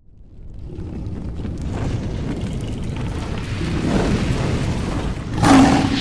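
Fire-and-rumble sound effect for an animated logo reveal: a low rumble with crackles swells up out of silence, and a sharp whooshing boom hits about five and a half seconds in.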